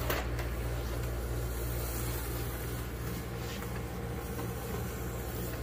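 Vintage 1/24 scale slot car with a new-old-stock electric motor running on the track, a steady motor hum and rumble.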